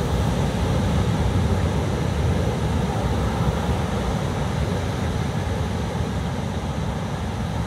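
Steady road and engine noise inside a moving camper van's cabin, an even rumble with a hiss above it.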